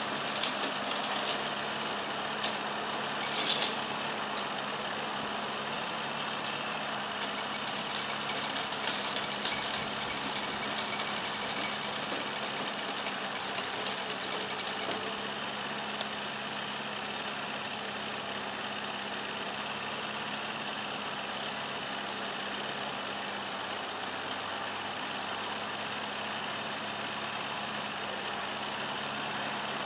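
Canal lock paddle gear being wound up with a windlass: the ratchet pawl clicks rapidly in spells, a short one at the start, a brief burst a few seconds in, and a long run of about eight seconds that stops halfway through. Under it a steady background noise with a low hum runs on.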